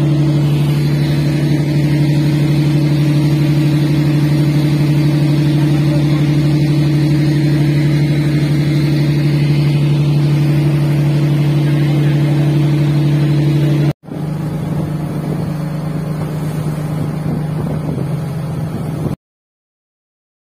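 A fishing boat's engine running under way, a loud, steady drone heard from on deck, over the rush of water. About fourteen seconds in the sound cuts, then a quieter engine-and-water sound runs on and stops abruptly near the end.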